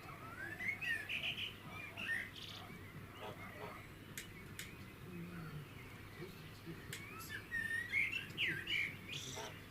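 Songbirds chirping in two bouts of quick, rising and falling notes, with a few faint clicks in the pause between them.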